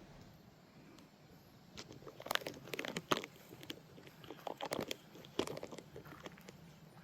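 Irregular crunching and crackling of leaves and twigs, starting about two seconds in and easing off near the end.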